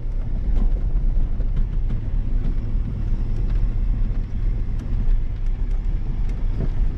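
Vehicle engine and road noise while driving: a steady low rumble.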